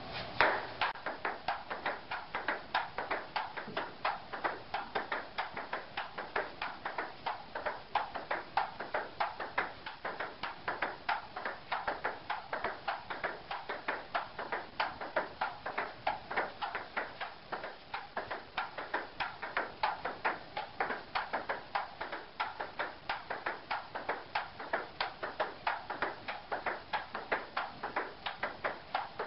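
Table tennis ball bouncing back and forth off the paddle, the table and the upright folded half of the table in a long solo rally: a quick, even run of sharp clicks, starting with the serve just after the start and going on without a break.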